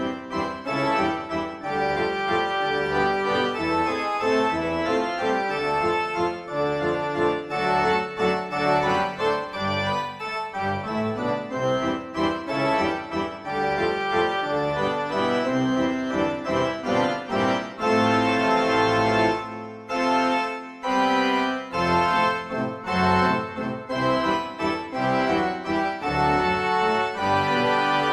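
Instrumental background music with organ-like keyboard notes.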